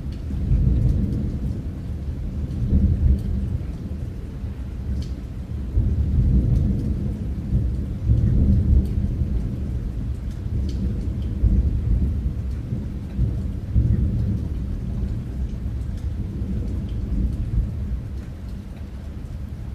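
Rain falling, with a deep rumble that swells and fades every few seconds and scattered ticks of drops.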